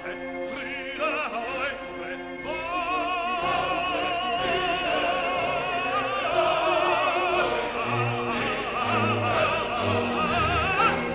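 Background music: operatic singing with wide vibrato over orchestral accompaniment, with a steady beat about once a second.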